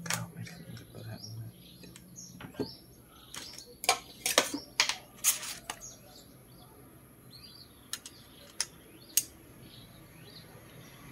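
Clicks and knocks of a circuit board and tools being handled on a workbench: a cluster around the middle, then three single clicks about half a second apart near the end. Birds chirp faintly in the background.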